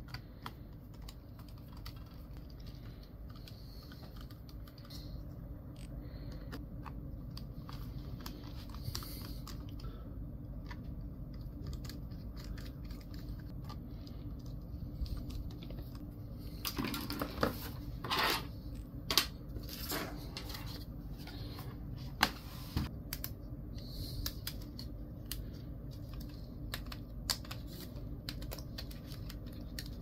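Small clicks and taps from hands working on a Dell Precision 7760 laptop, scattered throughout, with a cluster of sharper clicks in the middle, over a low steady hum.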